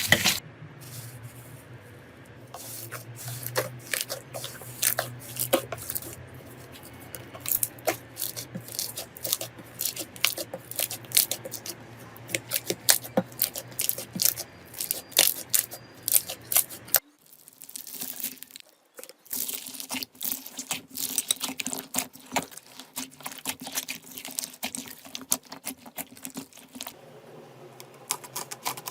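Slime being squished and pulled by hand, giving many quick, sharp popping and crackling clicks. The sound breaks off briefly a little past halfway, then the same kind of clicking resumes over a faint hum.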